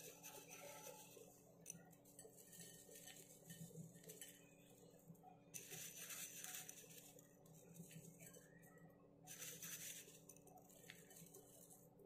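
Faint crisp rustling of omapodi (thin fried gram-flour sev) being crumbled between fingers and scattered onto the chaat, in two short patches about halfway through and near the end, with a few light ticks; otherwise near silence.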